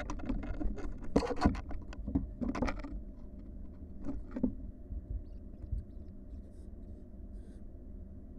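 Barn owl nestlings scrabbling and knocking about on the floor of a nest box: a sharp click, then a burst of scratchy scrapes and knocks lasting about three seconds, and a shorter one about four seconds in, over a steady low hum.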